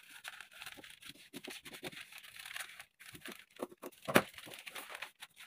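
Scissors snipping through a paper sewing pattern, with crisp paper rustling and crackling; a louder knock about four seconds in as the scissors are lifted and the paper is moved.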